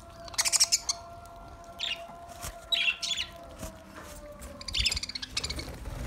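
A flock of budgerigars chirping and chattering in several short bursts.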